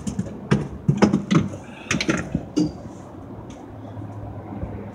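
A quick run of sharp clicks and clacks, about eight of them over the first three seconds, followed by a steady low engine hum.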